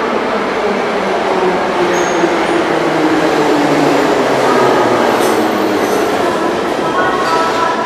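MMZ Ezh-3 metro train running into the station platform, its traction-motor whine falling steadily in pitch as it slows over a rumble of wheels on rail. A higher squeal joins about seven seconds in as the cab passes.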